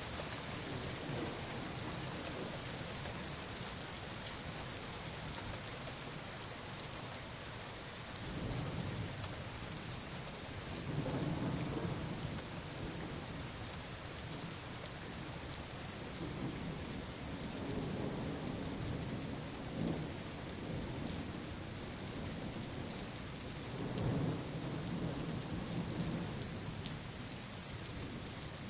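Steady rain hissing, with several low rolls of thunder swelling and fading, the loudest about a third of the way in and again near the last quarter.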